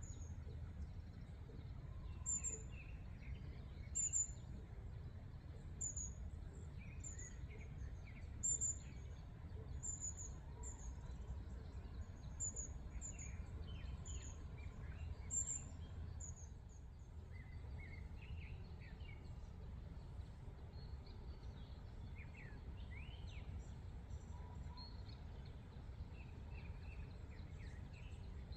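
Wild birds calling: a high, thin chirp repeated about every one to two seconds that stops about halfway through, with other short calls scattered throughout, over a steady low rumble of outdoor background noise.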